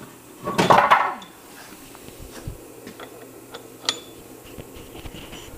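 Small metal clicks and taps as a straight edge is set into a milling-machine vise, over a steady low shop hum. About half a second in there is a louder, rough sound lasting under a second.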